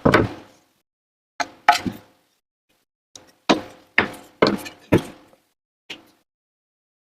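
A string of sharp wooden knocks and thunks, about eight at uneven spacing, some in quick pairs.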